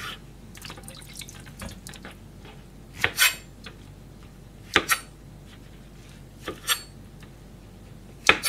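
Chef's knife slicing through shiitake mushrooms and striking a plastic cutting board: sharp knocks in pairs, about every one and a half to two seconds, starting about three seconds in.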